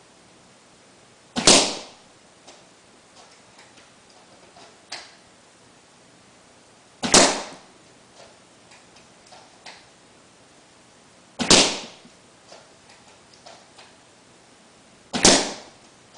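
Tokyo Marui VSR-10 G-Spec spring-powered bolt-action airsoft sniper rifle fired four times, each shot a sharp snap about four to six seconds apart, with faint clicks of the bolt being worked between shots.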